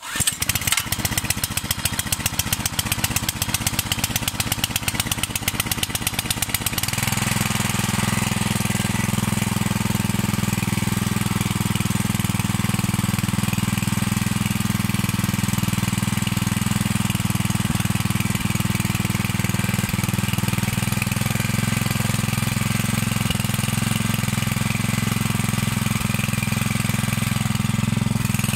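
Greenleaf WP-30 water pump's 6.5 HP four-stroke petrol engine starting up and running unevenly for about seven seconds, then settling into a steady, smoother run.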